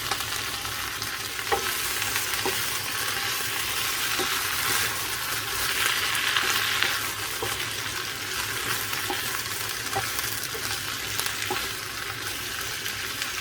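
Cabbage sizzling in hot oil in a frying pan as it is stir-fried, with scattered light clicks of the stirring utensil against the pan.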